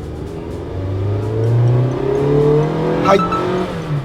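Toyota TownAce camper van's four-cylinder engine pulling hard under full throttle from a standstill, with its throttle controller in sport mode. The engine note rises, dips about two seconds in as it shifts up, climbs again, then drops away near the end. There is a short click a little after three seconds.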